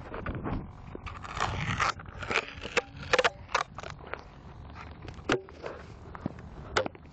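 Handling noise on a cell phone's microphone: irregular crackling, scraping and sharp knocks as a hand grips and moves the phone taped under an RC airplane.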